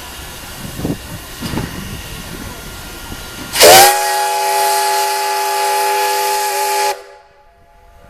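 P36 steam locomotive sounding its chord whistle: a sharp onset with a brief upward swoop, a steady multi-tone blast held about three seconds, then an abrupt cutoff. Before it, steam hissing with two short puffs.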